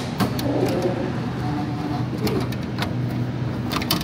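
A steady low hum with scattered clicks and knocks.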